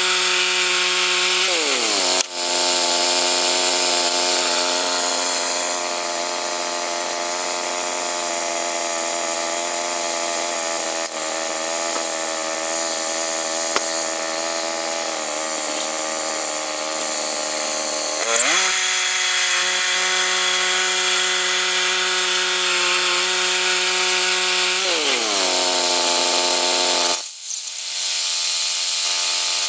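Gas-engine saw running steadily under load while milling pine. Its pitch drops about two seconds in, climbs again about two-thirds of the way through, drops once more, and then cuts off abruptly near the end.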